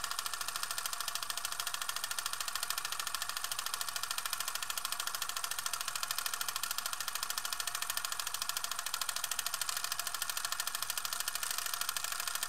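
Film projector running: a steady, fast mechanical clatter.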